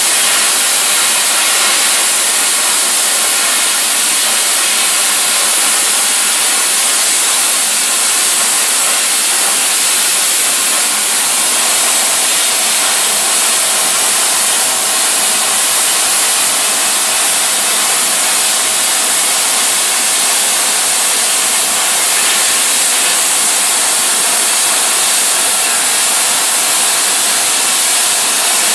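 Plasma cutter cutting steel plate: a loud, steady hiss of the air-driven arc.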